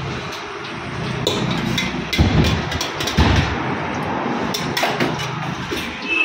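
A metal spoon scraping and knocking against a steel mixing bowl while a thick creamy spread is scooped out, with sharp clicks and two dull thumps a little after two and three seconds in.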